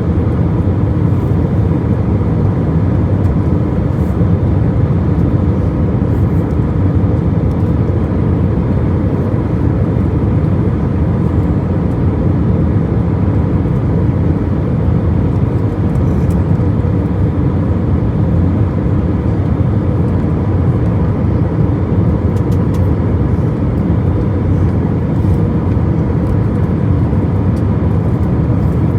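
Airplane cabin noise: a steady, even low roar that does not change, with a faint steady tone running over it.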